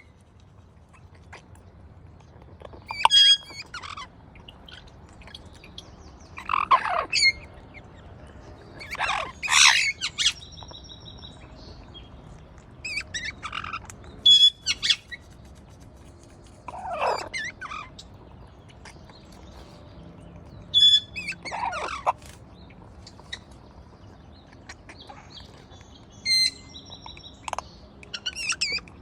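Parrot chirping and whistling in short bouts every few seconds, some calls sliding down in pitch.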